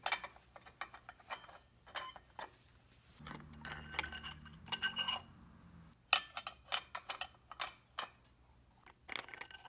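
Steel and friction clutch plates of a Harley-Davidson Shovelhead clutch being slid one after another onto the clutch hub, making a series of light metallic clicks and clinks that come in small clusters.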